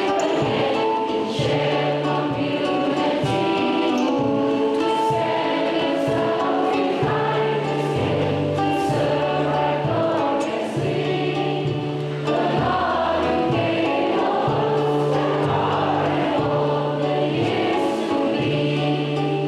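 A choir singing with instrumental accompaniment over a steady bass line.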